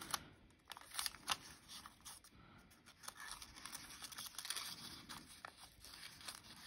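Folded origami paper rustling and crinkling faintly as fingers open a paper pocket and work a flap into it, with a few short crisp ticks in the first second and a half.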